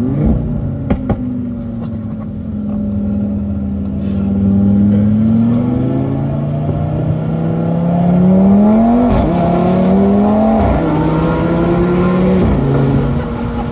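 Straight-piped, tuned pre-facelift Audi RS3's turbocharged five-cylinder pulling through the gears: the engine note climbs in pitch and drops sharply at three quick upshifts in the second half. A couple of sharp exhaust cracks sound about a second in.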